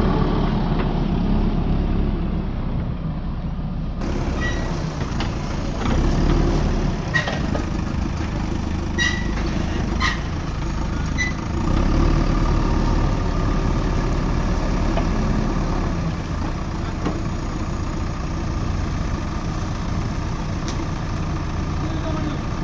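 JCB backhoe loader's diesel engine running steadily, swelling twice as it works, with a few short high-pitched clicks in the middle.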